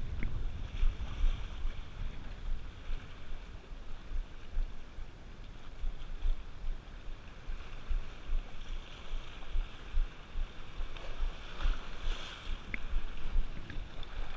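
Wind buffeting the microphone in gusts over waves washing and breaking on shore rocks, with a couple of faint sharp ticks.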